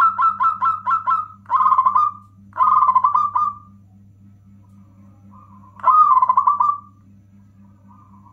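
Zebra dove (local perkutut) cooing: a fast run of short clipped notes that ends about a second in, then two short phrases in quick succession and, after a pause of about two seconds, one more phrase. A steady low hum runs underneath.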